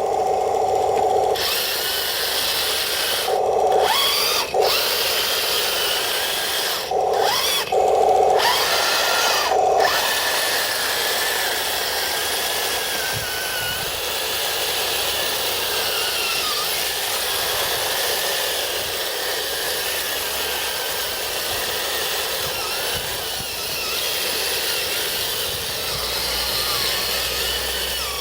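Electric drive motors and gearboxes of a metal-tracked RC M26 tank whining in several short bursts during the first ten seconds, then a steady mechanical grinding as it keeps driving.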